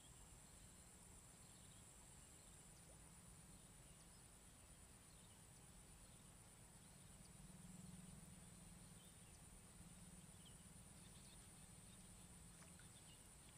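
Near silence: faint outdoor wetland ambience with a thin, steady high-pitched insect drone.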